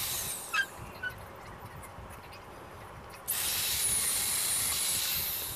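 Corded electric drill boring a Forstner bit through a wooden workbench leg. The drill winds down within the first second, starts again about three seconds in, and runs steadily until just before the end.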